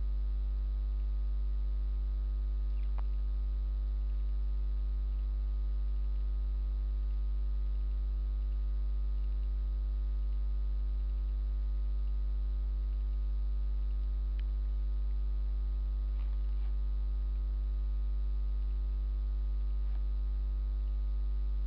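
Steady low electrical mains hum picked up in the recording chain, with a ladder of evenly spaced overtones and an unchanging level. A couple of faint clicks sit in it.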